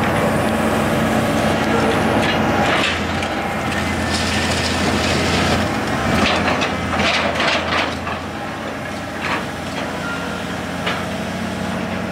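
Komatsu excavator's diesel engine running steadily while its grapple claw crushes a Volvo 240's body, with crunching and cracking of sheet metal busiest from about two to eight seconds in, then a few single sharp cracks.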